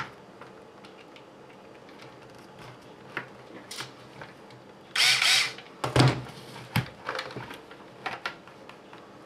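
Cordless drill/driver with a long hex bit running in one short half-second burst about five seconds in, driving a screw. A knock follows about a second later, then a few light clicks from plastic parts being handled.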